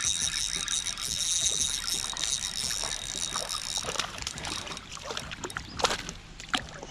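Water trickling and sloshing around a fishing kayak, with a steady high hiss that stops about halfway and a few sharp knocks on the boat in the second half.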